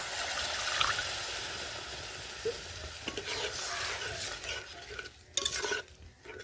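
Curry masala sizzling in a pan while a spoon stirs it, a steady hiss that dies down near the end, with a couple of short knocks from the spoon or pan.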